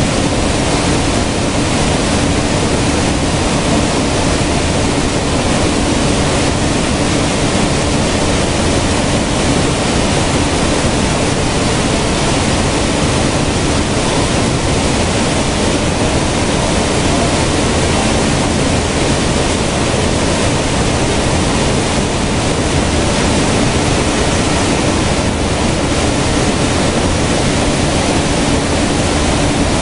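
Grain cleaning and sieving machine running: a loud, steady rushing noise with a constant hum underneath.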